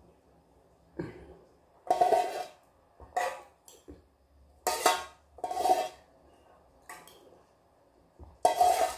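Ramyeon broth slurped straight from a small metal pot: a series of about seven short, loud sips, roughly a second apart.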